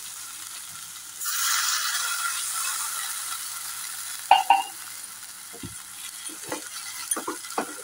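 Spiced onion masala frying in a kadai breaks into loud sizzling about a second in, as liquid hits the hot oil, and the sizzle slowly fades over the next few seconds. A wooden spatula stirring in the pan knocks sharply against it twice about four seconds in, then gives scattered lighter taps and scrapes.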